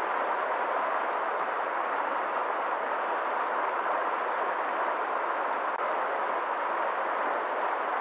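Fast-flowing river rushing through rapids: a steady, even rush of water.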